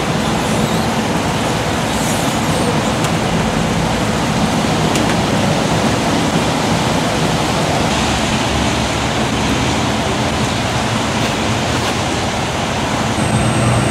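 Steady road-traffic noise with the low hum of a running engine underneath.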